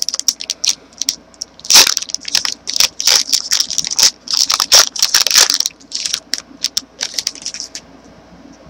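Crinkly wrapper of a trading-card pack being torn open and handled: rapid, irregular crackling that stops near the end.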